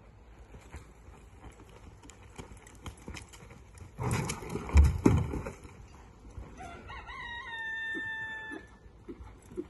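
A rooster crows once about seven seconds in, one held call of nearly two seconds that sags slightly in pitch. Before it, about four seconds in, comes the loudest sound: a clatter and thump as hollow plastic barrels are knocked over. Faint hoof thuds on sand run under both.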